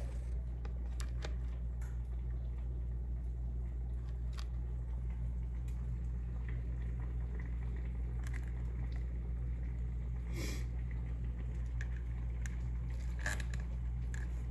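A metal spoon scrapes and presses through wet, salted grated cabbage in a plastic bowl, squeezing out the juice, with small clicks and taps as it knocks against the bowl and a plastic cup. A steady low hum runs underneath.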